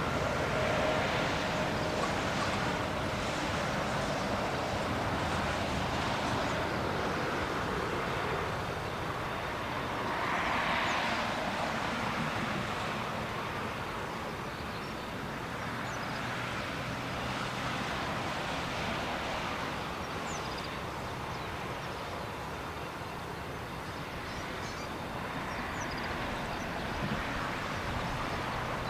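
Jet engines of a Boeing 747-8F freighter at takeoff thrust during the takeoff roll and lift-off, a steady rushing engine noise that swells and fades slowly, loudest about ten seconds in.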